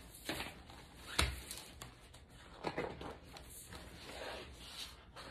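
Paper pages of a hardcover picture book rustling as they are turned, in several short soft swishes, with a thump about a second in.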